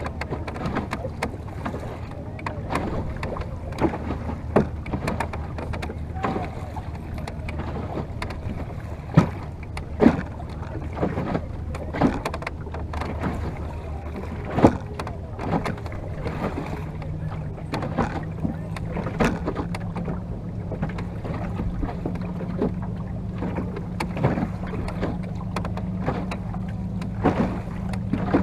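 Water slapping and splashing in short, irregular knocks against the wooden hull of a Venetian boat moving across open lagoon water, over a steady low hum that shifts higher in pitch about halfway through.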